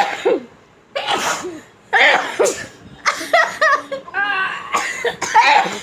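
Several young women sneezing and coughing in a rapid string of sudden bursts, set off by sniffed sneezing powder, with some laughing in between.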